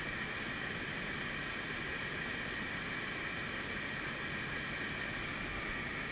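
Whitewater creek rapids running high at about 175 cfs, a steady rushing noise with no breaks.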